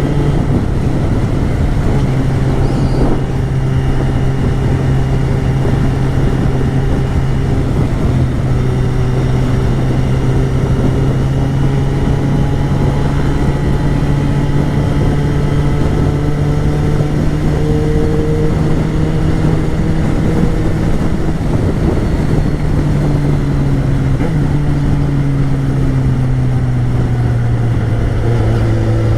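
Yamaha XJ6's 600 cc inline-four engine running steadily as the motorcycle is ridden, with wind and road noise over it. The engine pitch holds mostly level, dipping and changing slightly a couple of times, most noticeably near the end.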